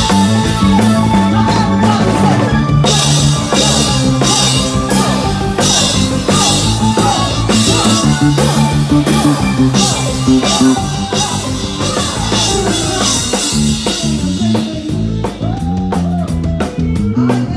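Live band playing: a bass guitar close by steps through a run of low notes under a drum kit, with guitar in the mix.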